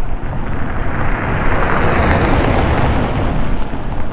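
A car driving past on a gravel road, its engine and tyres growing louder to a peak about two seconds in and then fading as it goes by.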